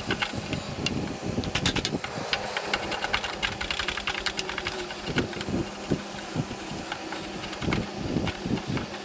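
Power saw cutting notches into wooden posts: a steady motor hum with many sharp, irregular clicks and knocks from the blade working the wood.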